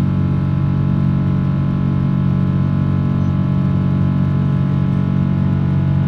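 Steady drone of a Boeing 777-300's jet engines, many unchanging tones over a rushing noise, heard inside the cabin.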